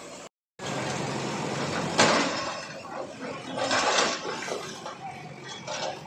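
JCB backhoe loader's engine running while its bucket breaks down brick walls, with crashes of falling masonry and rubble, the sharpest and loudest about two seconds in.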